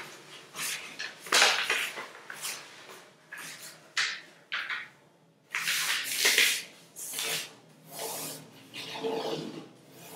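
A sheet of paper being folded and creased by hand on a tabletop: rustling handling noise and sharp swipes as the folds are pressed flat, in irregular bursts of a second or less.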